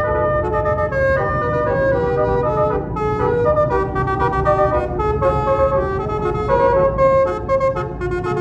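Bus telolet musical horn (a Basuri multi-tone air horn) playing a quick tune of stepped notes, over a steady low rumble.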